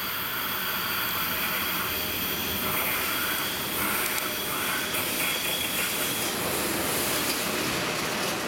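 EP1M electric locomotive hauling a passenger train in on the platform road and passing close by. Its hiss and wheel-on-rail noise grow slowly louder as it nears.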